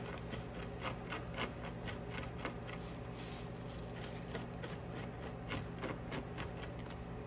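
Small decorative rocks stirred together with white glue on paper with a small hand tool, giving irregular light clicks and scrapes, over a steady low hum.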